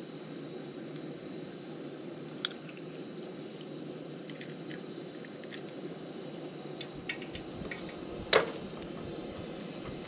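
Steady low roar of a propane camp-stove burner heating a frying pan, with light clicks as the pan is handled. About eight seconds in comes one sharp metallic clank of the pan against the stove grate.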